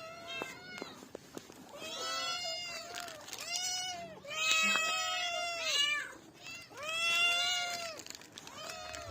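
A cat meowing over and over, a run of drawn-out meows that each rise and fall in pitch, loudest in the middle.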